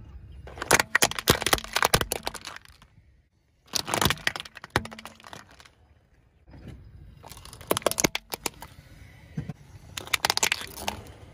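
Hard plastic toys cracking and crunching as a car tire rolls over them: a green plastic toy soldier figure, then a white plastic toy. The sound comes in several bursts of rapid snapping, each lasting a second or two, with a brief silence about three seconds in.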